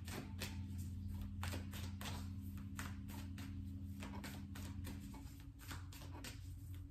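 Tarot cards being shuffled by hand: a faint run of quick, irregular card flicks and taps over a low steady hum.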